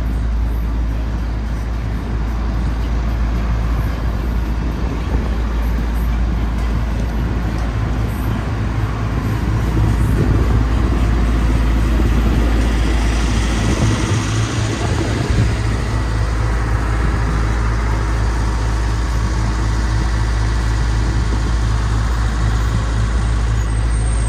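City street traffic: a steady low rumble of vehicle engines and tyres, growing louder for a few seconds about halfway through.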